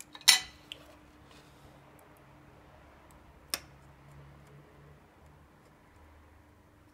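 Small metal tools being handled on a workbench: one sharp metallic clatter with a couple of light ticks about a quarter second in, and a single shorter click near the middle, as a soldering iron and a phone circuit board are picked up and set in place.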